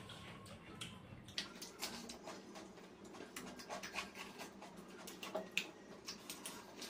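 Eating by hand, rice and chicken curry: scattered small clicks and smacks from fingers mixing rice on the plates and from chewing, with one sharper click a little after five seconds in.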